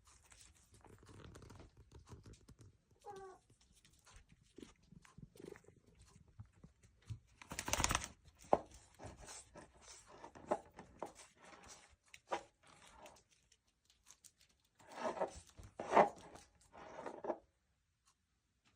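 Domestic cat meowing plaintively: one short, wavering meow about three seconds in, then a run of meows near the end. Rustling and scuffing noises come in between, the loudest a brief burst about eight seconds in.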